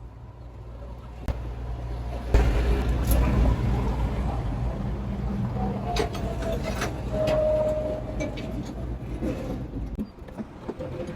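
A vehicle engine running steadily, with scattered sharp metallic clicks and knocks over it.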